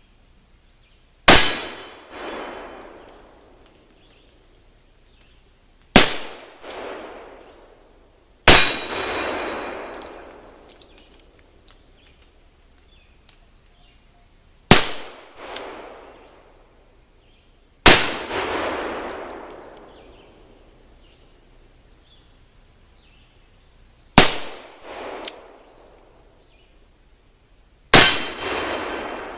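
Seven black-powder cap-and-ball revolver shots, a few seconds apart, each followed by a rolling echo. The shots seem to alternate between the .44 Colt 1847 Walker and the .31 Remington Pocket, fired two-handed: the larger shots have the longer, fuller tails.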